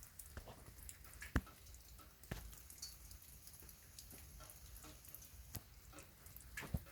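Rain falling softly, with irregular drops tapping on a surface and a few louder drops standing out.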